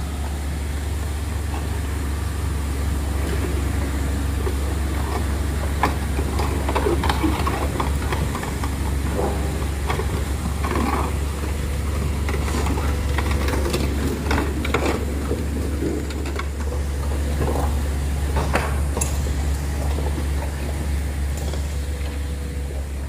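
Heavy diesel engine of earthmoving equipment running steadily with a deep, even rumble, with scattered metal clanks and knocks over it.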